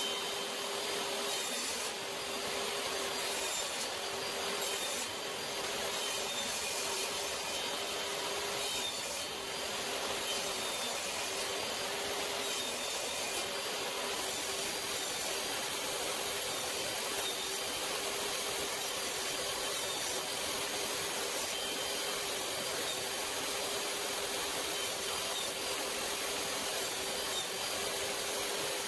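Jobsite table saw running steadily, a constant whine over the blade noise, as it cuts notches into wooden legs.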